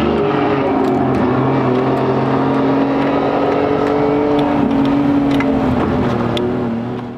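A motor vehicle engine running at a steady speed, holding one pitch with small dips, with faint clicks over it.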